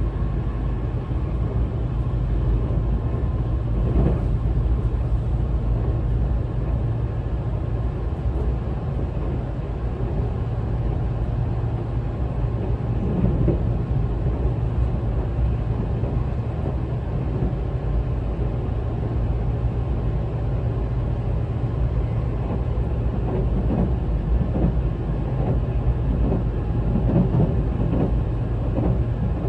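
Tobu 200 series limited express electric train, which runs on traction equipment and bogies taken over from the 1720 series DRC, heard from inside a passenger car while running: a steady running rumble with a faint steady tone and a few short knocks near the end.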